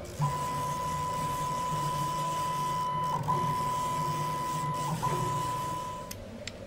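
Stepper motors of a small CNC milling machine driving the table along an axis at a steady rate, giving a steady whine. It breaks briefly twice, about three and five seconds in, and stops shortly before the end.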